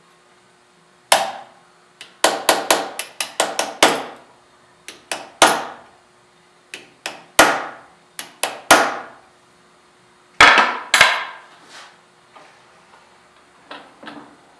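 Small hammer tapping on metal: a series of sharp, ringing metallic strikes, some in quick runs of about five a second and others a second or so apart, thinning out toward the end. A faint steady hum runs underneath.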